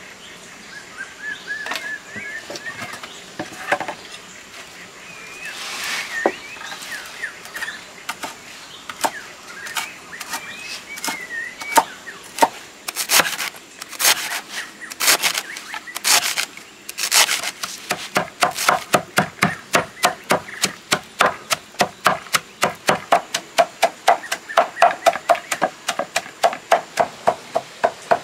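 Cleaver chopping leafy greens on a wooden board. A few separate heavy strikes come about halfway through, then fast, even chopping at about four strokes a second, each stroke knocking on the wood.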